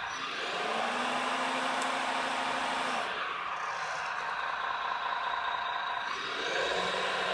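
Radio-controlled hydraulic excavator model running: a steady whine from its hydraulic pump and motor, with a lower tone coming in and out as the boom, stick and swing move.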